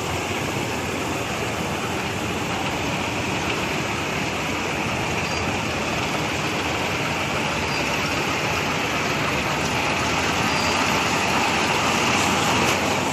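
Combine harvester running steadily while its unloading auger pours a stream of paddy grain into a trolley, the hiss of the falling grain over the machine's drone.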